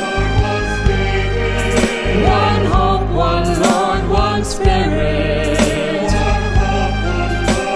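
A choir singing an inspirational Christian song, the words 'one hope, one Lord, one spirit', over band backing with bass and a steady drum beat.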